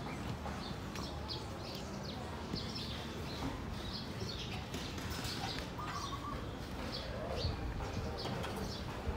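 Small birds chirping, short high calls repeated again and again, over a steady low rumble.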